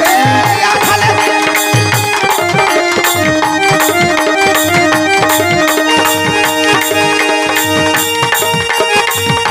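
Live folk dance music: hand drums beat a steady, quick rhythm under a melody played in held notes that step up and down.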